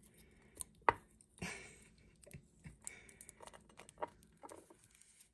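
Small folded paper slips rustling and clicking as fingers dig one out of an enamel mug and unfold it, with a sharp tap about a second in.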